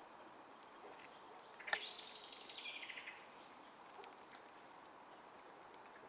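A small songbird sings one short phrase of rapid notes falling in pitch, about two seconds in, just after a single sharp click. A thin high call sounds once about four seconds in, over faint forest background hiss.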